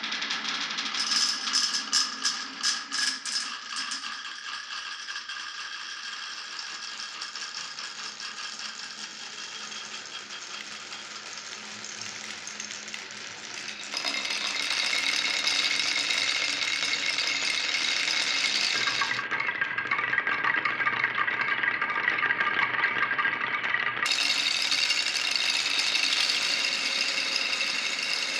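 Glass marbles rolling and rattling along a wooden marble run, with a quick string of clicks about a second in. The sound jumps abruptly in loudness and character several times.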